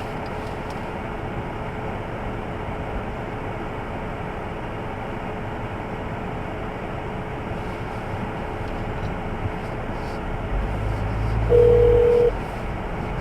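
A phone call ringing through a car's speakers over the steady noise of the idling car: a faint steady tone throughout, then a short, louder tone about eleven seconds in.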